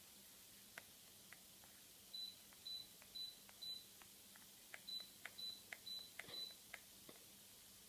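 Jupiter Sirius 30 LED FX electric fireplace insert's control unit beeping as its buttons are pressed: two runs of four short high beeps about half a second apart, with small clicks between them. A faint steady hum lies underneath.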